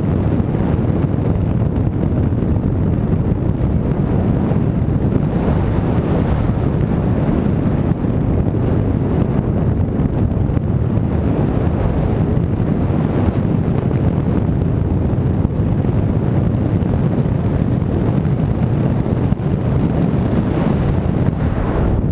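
Steady wind rushing over the microphone, a loud, even low-heavy roar with no engine pitch in it, typical of airflow over a camera riding on a model aircraft in flight.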